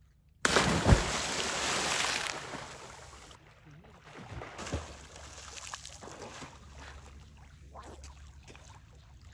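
A man diving headfirst into cold seawater: a sudden loud splash about half a second in, then churning water that dies away over the next two seconds or so. After that come quieter, uneven splashes and sloshing as he swims.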